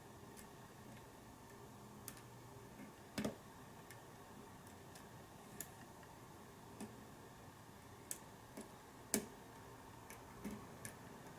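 Faint, irregular clicks of a lock pick probing and lifting pins inside a Sargent pin tumbler lock cylinder, with two louder clicks about three seconds in and about nine seconds in.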